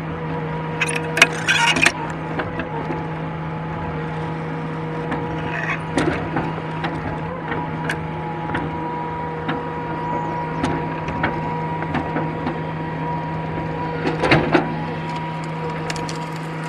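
Excavator engine running at a steady hum, with scattered knocks and creaks of wood as logs are handled. Bursts of crackling and splintering wood about a second in and again near the end.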